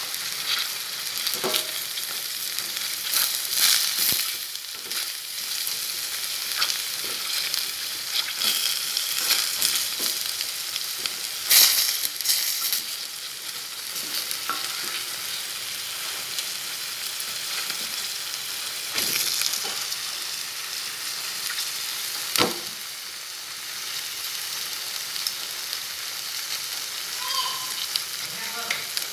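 Minced beef and garlic sizzling in hot oil in a stainless steel pot, with a few sharp knocks against the pot as sliced carrots and potatoes are added and stirred in.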